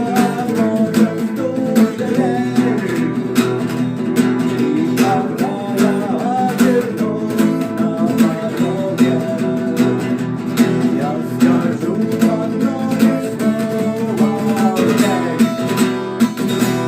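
Acoustic guitar strummed in a steady rhythm under a melody line; the playing stops near the end and the last chord rings out.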